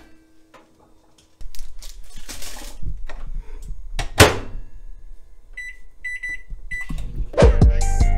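Microwave oven running with a steady low hum, with a click as it is started and a thump about four seconds in, then a few short electronic beeps. Music with drums comes in near the end.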